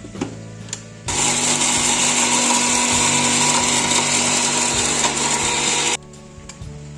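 Electric mixer grinder grinding whole spices into masala powder: a loud, even motor-and-grinding noise that starts abruptly about a second in and cuts off about five seconds later.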